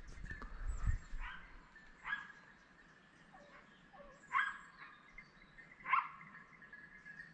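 Boar-hunting dogs barking, four short sharp barks spaced a second or more apart, the last two the loudest.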